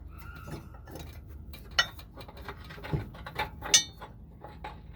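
Metal clinks and taps as a riding mower blade and its mounting hardware are handled and fitted against the spindle, a handful of separate sharp knocks in the second half.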